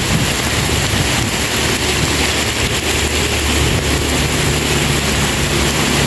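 Heavy downpour of rain on the lake surface: a loud, steady hiss. A low steady hum comes in about halfway through.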